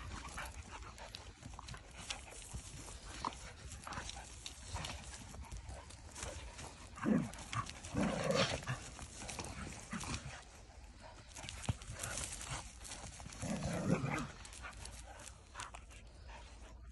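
Dogs play-wrestling on leaf litter and dry bracken: a running rustle and crackle of paws and bodies on the ground, broken by a few short dog vocalizations about seven, eight and fourteen seconds in.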